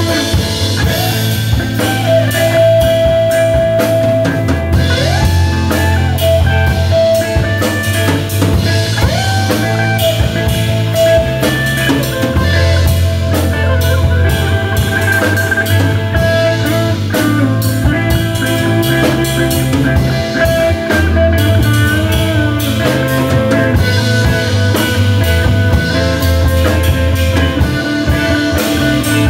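Improvised instrumental rock from a trio. A drum kit plays busily with rimshots and snare over held low bass notes, while a long sustained lead note slides up and down between pitches.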